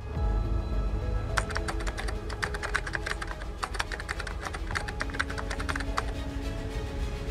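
Computer keyboard typing: a quick run of keystroke clicks from about a second and a half in until about six seconds, over background music with steady held notes.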